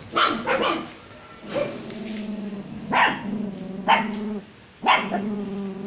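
Young puppies barking and yapping. There is one sharp yap near the start, then three more about a second apart from about three seconds in, with low drawn-out whimpers between them.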